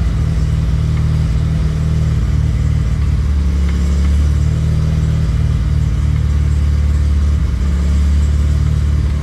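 Mazda RX-7 FD's 13B two-rotor rotary engine idling steadily at about 1,100 rpm.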